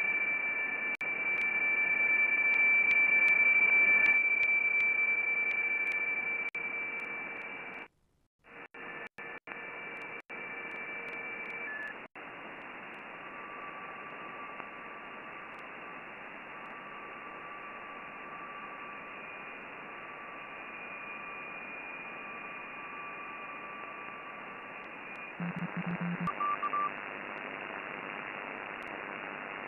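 Flex-5000 software-defined receiver's audio on the 17-metre amateur band: steady band hiss cut off above about 3 kHz, with several steady carrier whistles at different pitches as the receiver is tuned down the band. The audio cuts out several times about eight to twelve seconds in, and a short low buzz with a higher tone comes near the end.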